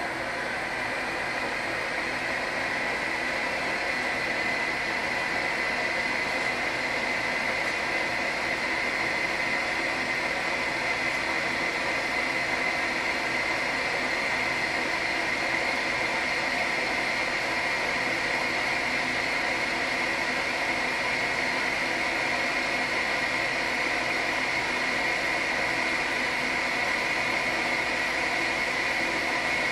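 1955 Schaublin SV-51 milling machine running at 180 rpm on power feed while a Wohlhaupter UPA3 boring head takes a 0.25 mm cut in a steel puck: a steady mechanical running noise with a steady high-pitched tone that comes up in the first second and then holds.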